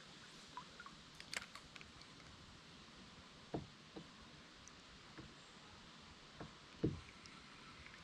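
A few soft knocks and taps against a kayak hull over a faint steady hiss; the loudest knock comes about seven seconds in.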